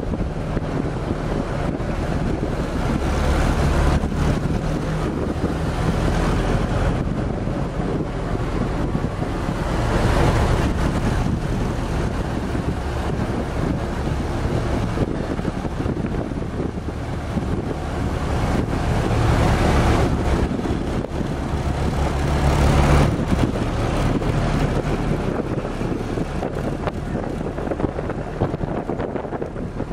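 WWII jeep's four-cylinder engine running as it drives along, the engine note swelling and easing several times, with heavy wind buffeting the microphone in the open vehicle.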